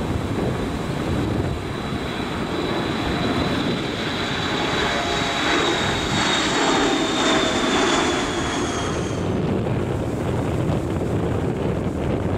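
Twin-turbofan business jet, Bombardier Challenger type, at takeoff power through its takeoff run and lift-off: a steady jet roar under a high whine that slowly falls in pitch as the aircraft passes. The whine stops abruptly about nine seconds in, leaving a rumble with wind on the microphone.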